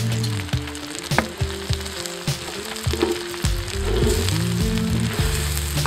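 Cabbage frying and sizzling in a hot pan while a wooden spoon stirs it, with short knocks and scrapes of the spoon against the pan. Low steady music tones play underneath.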